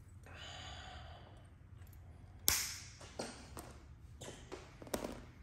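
A soft scraping rustle, then one sharp click and several lighter clicks and taps: hand tools and small parts being handled while fitting the brake line to the e-bike frame.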